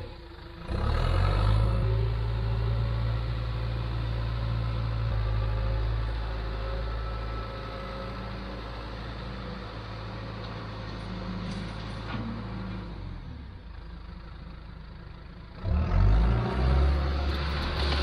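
John Deere 310SE backhoe loader's diesel engine running under load as its front bucket pushes and spreads crushed recycled concrete. The engine sound eases off through the middle and comes back loud near the end.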